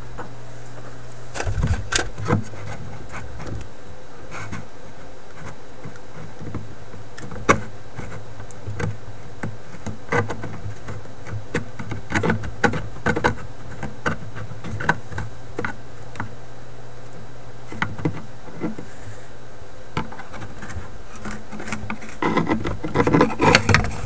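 Scattered clicks and light knocks from hands working on a wooden cabinet, over a steady low hum. The knocks come closer together near the end.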